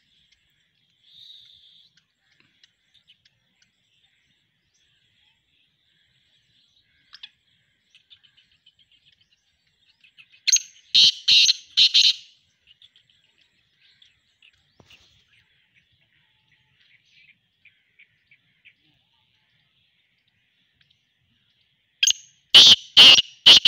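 Male black francolin calling, a loud run of four or five quick notes, twice: once about halfway through and again near the end. Faint chirps and ticks lie between the calls.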